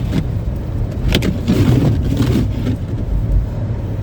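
All-wheel-drive car driven slowly on a snowy road, heard from inside the cabin: a steady low rumble of engine and tyres, with a sharp click about a second in.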